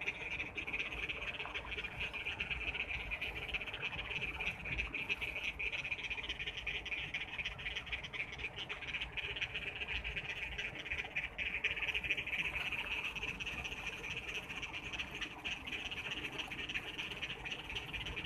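A dense chorus of frogs calling steadily after heavy monsoon rain, with a low rushing noise underneath from the floodwater flowing across the road.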